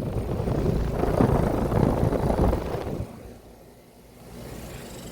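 Outdoor air-conditioner condensing unit running close by: a loud rush of fan air over a low rumble, which drops off sharply about three seconds in and settles to a quieter steady hum.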